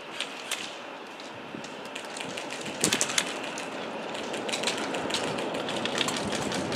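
Airsoft guns firing: irregular strings of sharp snapping shots, with a loud cluster about three seconds in and quicker, denser firing near the end.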